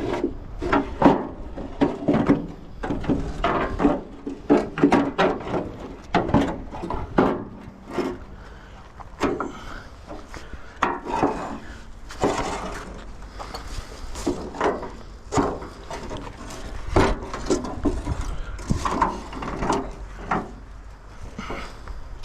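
Irregular knocks, clunks and scraping of tools and metal parts being handled and moved about, at uneven intervals. No power saw is running.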